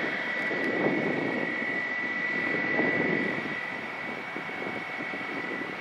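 Airbus A320's IAE V2500 turbofan engines at taxi power: a steady high whine over a rushing jet noise, easing slightly in the second half as the airliner rolls past.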